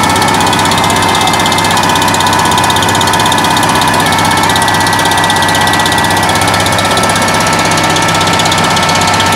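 Fishing boat's engine running steadily and loudly, without let-up.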